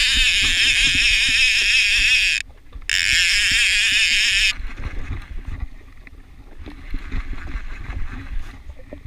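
Overhead fishing reel's clicker buzzing as a hooked fish pulls line off the spool: two fast, loud runs of clicks with a short break between, then it stops.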